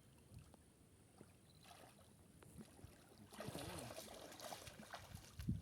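Faint water sounds, then a brief rush of splashing water a little over three seconds in that lasts about a second and a half.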